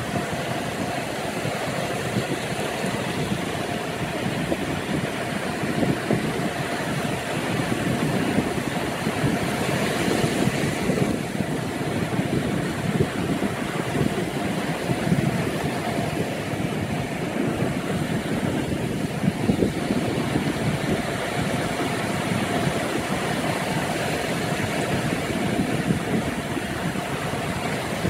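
Small ocean waves breaking and washing up over a flat sandy beach: a steady rush of surf that swells and ebbs, with a brighter hiss of foaming wash about ten seconds in.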